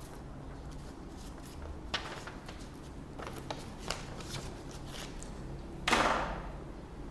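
Light rustling and clicking of paper being handled, with a louder rustle about six seconds in that fades over about a second.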